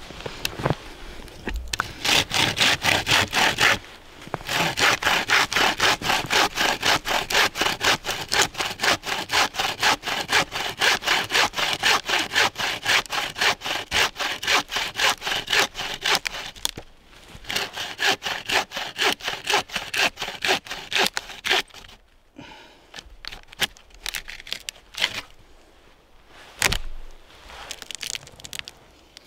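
Hand saw cutting through a wooden pole with fast, even back-and-forth strokes. It pauses briefly about four seconds in, stops for a moment around seventeen seconds, saws a few seconds more, then gives way to quieter handling with a single knock near the end.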